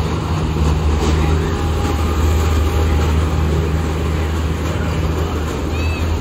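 Steady low hum and rumble as the witch-train ride's cars roll past, amid general fairground noise. A faint short squeak comes near the end.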